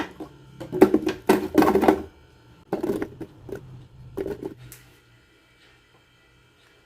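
A run of knocks and clattering handling noises in the first five seconds, the loudest group between about one and two seconds in, then quiet.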